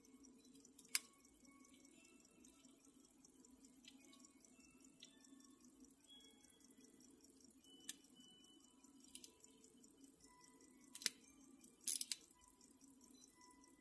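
A few sharp small clicks and faint metallic pings from handling a gold-filled hunter pocket watch while its crown is turned to set the hands, the loudest a cluster about twelve seconds in, over a faint low hum.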